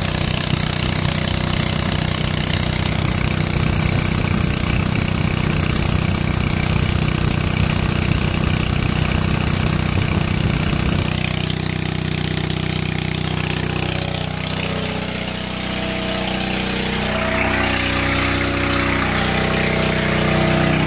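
Old flathead Honda 2.2 hp single-cylinder engine running steadily at about 3600 RPM, belt-driving a 24-volt alternator at light load. About halfway through the sound turns smoother and less close.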